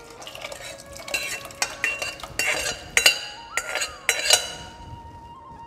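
Steel ladle scraping and clinking against the sides of a stainless steel pot as cooked dal is scraped out into a second pot, a quick series of sharp metal clinks that ring on.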